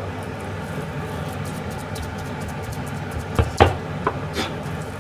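A kitchen knife knocking a few times on a plastic cutting board as it chops ground meat for meatballs, the loudest strike about three and a half seconds in. A steady low hum runs underneath.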